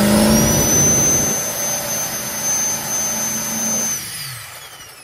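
Race truck's boosted engine held at raised rpm on the two-step launch limiter during a two-step check, with a steady high whine over it. About four seconds in it is shut off, and the engine note and whine both fall away as it winds down.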